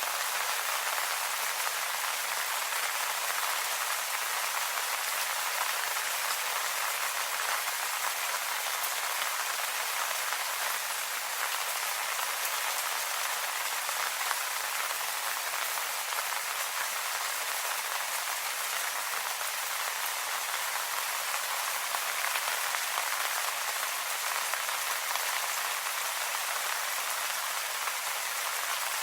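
Steady rain falling on leaves, a dense even patter of drops.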